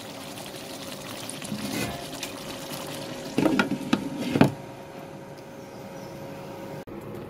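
Chicken kassa sizzling and bubbling in its own oil in the pan, a steady hiss: its water has cooked off and the oil has come up. About three and a half seconds in, a few knocks as the lid is handled on the pan, over a faint steady hum.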